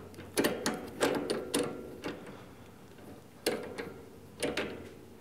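Lathe chuck being tightened with its chuck key on a small steel part: irregular metallic clicks and clunks from the key and jaws, the two loudest knocks near the end.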